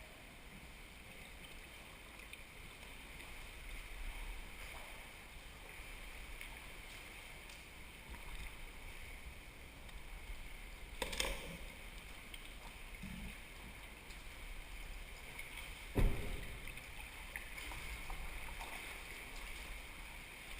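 A sea kayak being paddled on open water: steady water and wind noise, with two sharp knocks about eleven and sixteen seconds in, the second the loudest.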